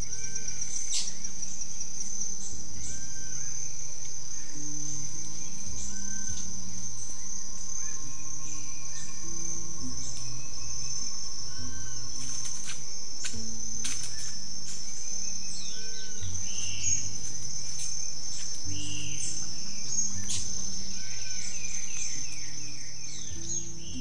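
Background music laid over forest ambience: a steady high-pitched insect trill, with a bird repeating short arched whistles every second or two.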